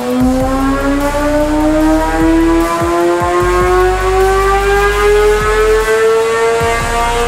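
Kawasaki ZX-10R's inline-four engine at full throttle on a chassis dynamometer, its pitch climbing steadily in one long pull toward the top of the rev range: a horsepower run while its fuel map is tuned.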